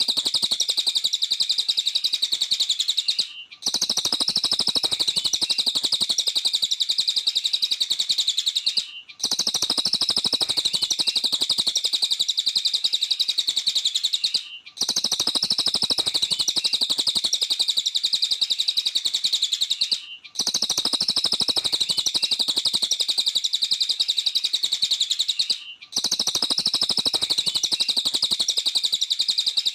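Cililin songbird singing a rapid, high-pitched chattering chirp without pause. The song breaks off briefly about every five and a half seconds and restarts identically, as a looped recording does.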